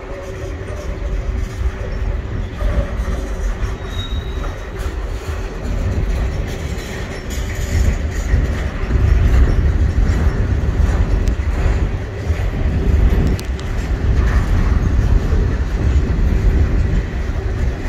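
Freight cars of a CN train rolling slowly past in reverse: a continuous low rumble of steel wheels on rail with light clacking, under a thin steady tone, growing louder about eight seconds in.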